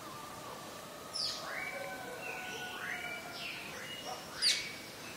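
Outdoor morning ambience of birds calling: several long drawn-out calls overlap, and sharp downward chirps cut in, the loudest about four and a half seconds in.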